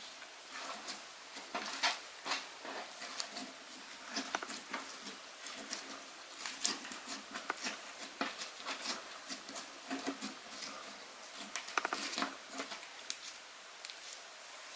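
Slime being squished and pressed by hand, giving irregular wet clicks and small pops.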